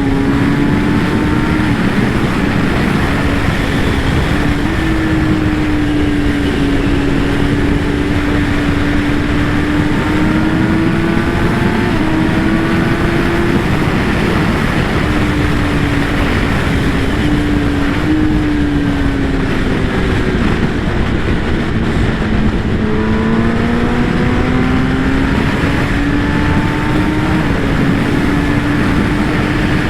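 Kawasaki ZX-10R inline-four engine running on the move, its pitch climbing and easing off with the throttle, over a steady rush of wind on the microphone.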